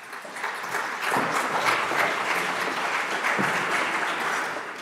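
Audience applauding, swelling over the first second, holding steady, and thinning out near the end.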